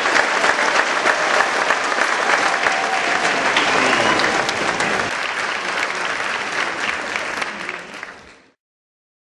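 A large audience applauding, dense clapping that fades out about eight seconds in.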